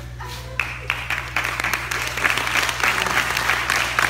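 Audience applauding: clapping breaks out about half a second in and builds into dense applause, over a steady low hum.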